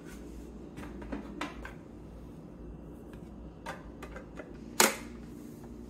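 Light clicks and taps from handling the refrigerator's water and ice dispenser during cleaning, with one sharp click near the end, over a steady low hum.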